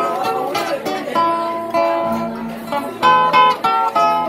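Music played on a plucked-string instrument such as a guitar: a melody of quick, separate notes, loudest about three seconds in.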